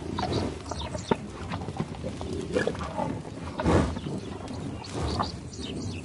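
American bison close at hand, its animal sounds heard over scattered clicks, with a loud noisy rush of sound a little under four seconds in.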